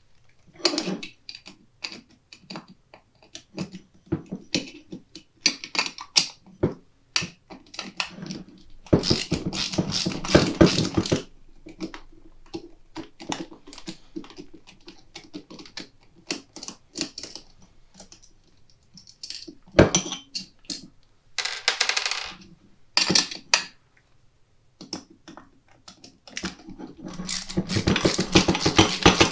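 Small metal clicks and clatter of screws being taken out of a John Deere mower deck sheave's two-piece steel shell. There are two stretches of rapid, dense clicking, one about nine seconds in and one near the end.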